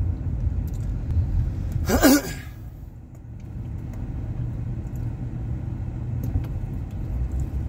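Steady low rumble of a car running. About two seconds in there is one brief, louder sound whose pitch falls.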